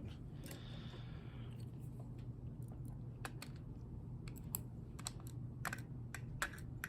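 Scattered light clicks and taps of small metal tools and lock parts being handled while working on a padlock's pins, with a brief soft scrape about half a second in, over a steady low hum.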